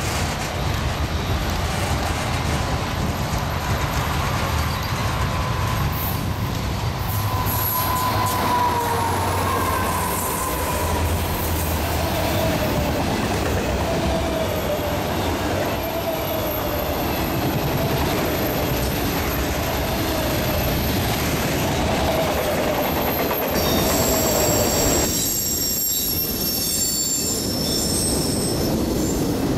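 Freight train rolling past close by: a steady rumble of wheels on rail with wavering wheel squeal from the autorack cars. About 25 seconds in the sound switches to another freight train of boxcars, with high-pitched wheel squeal.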